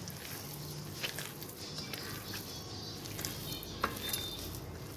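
A hand kneading and squishing chicken kofta mince with soaked bread on a plate: faint soft squelching, with a small click about a second in and another near four seconds.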